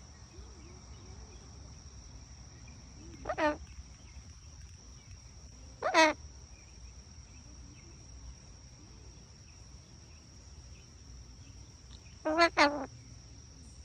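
A pet parrot giving short calls: one a few seconds in, another at about six seconds and a quick pair near the end.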